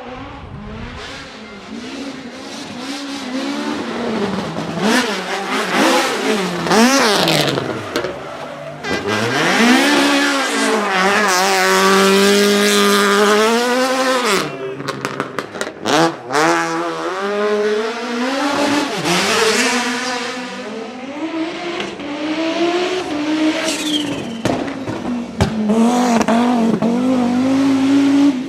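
Rally car engines revving hard, the pitch climbing and dropping again and again through gear changes, with sharp pops and crackles from the exhaust at several points.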